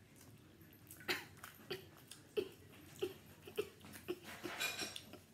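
A young child's quiet mouth and breath sounds, short and spaced about half a second apart, ending in a breathy laugh near the end.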